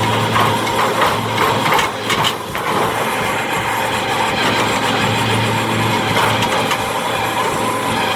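A heavy machine's engine running steadily with a constant low hum, with several sharp knocks in the first two and a half seconds.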